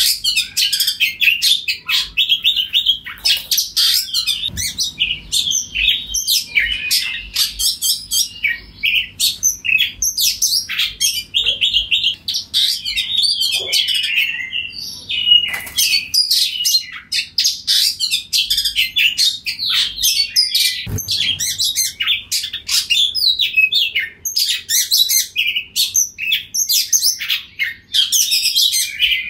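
Oriental magpie-robin in full song: a loud, fast, near-continuous run of varied whistles and chirps with only brief pauses.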